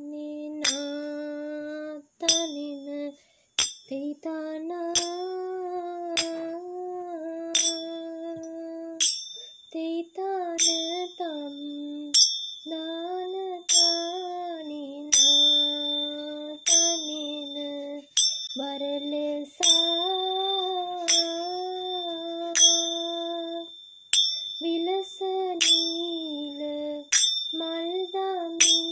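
A woman sings the rhythm syllables of a raban kavi in long, held notes. A ringing metallic strike keeps the beat about every one and a half seconds, and a high ringing tone carries on under it from about nine seconds in.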